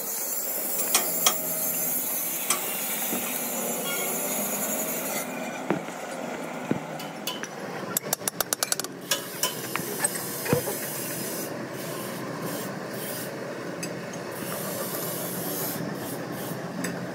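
Socket ratchet working on a tractor engine's main bearing cap bolts: a quick run of ratchet clicks about eight seconds in and a few single metal clinks and knocks, over a steady hissing background noise.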